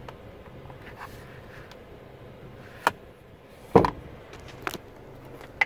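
Handling of a car's sun visor: a sharp click, then a louder thump about a second later, then two more clicks, over a faint steady hum in the cabin.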